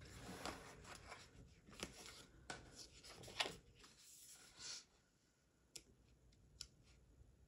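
Paper pages of a sticker book being flipped and handled: a run of soft rustles and crisp page turns for about five seconds, then only a few faint ticks.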